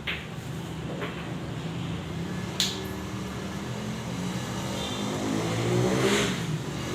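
A motor vehicle engine running and revving up, rising in pitch and getting louder toward the end. A few sharp clacks of pool balls striking each other, the sharpest about two and a half seconds in.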